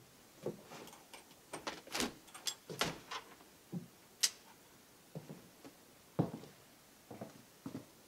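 An old wooden cabin door being opened and walked through: a string of clicks and knocks from the handle and latch, short creaks, and footsteps on wooden boards, with a sharp click about four seconds in.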